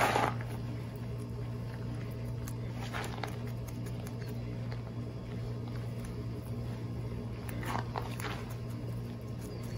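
Paintbrush dabbing polyester resin into fiberglass mat on a boat hull: a few short, soft scratchy strokes, about three seconds apart, over a steady low hum.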